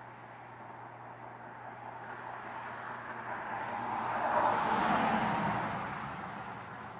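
A heavy truck passing at highway speed: tyre and engine noise builds, peaks about two-thirds of the way through, then fades as it goes by.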